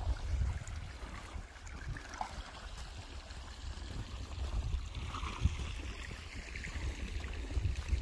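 Wind buffeting the microphone as a low, uneven rumble, over a faint steady rushing hiss of outdoor ambience.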